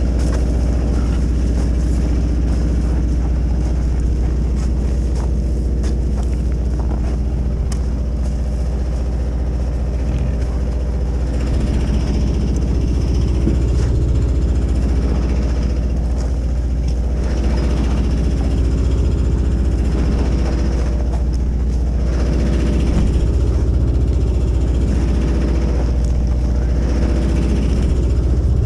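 A machine running steadily with a low, even hum.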